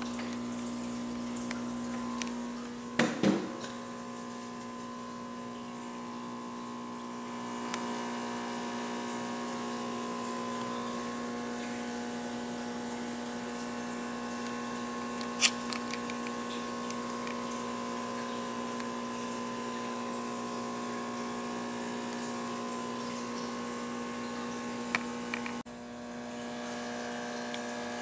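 Aquarium pump humming steadily, with a brief clatter of knocks about three seconds in and single sharp clicks around the middle and near the end.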